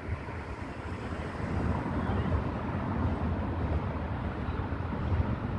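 Steady low rumble of a moving passenger train heard from inside a car, with wind buffeting the microphone.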